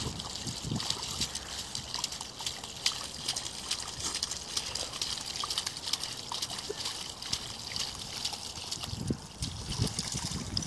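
A small dog digging in a muddy puddle with its front paws, with quick wet splashing and spattering of mud and water.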